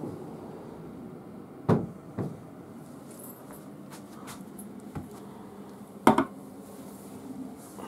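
A few sharp knocks: a strong one nearly two seconds in with a lighter one just after, then the loudest, a quick double knock, about six seconds in, as a steel drink can is set down on a low wooden table.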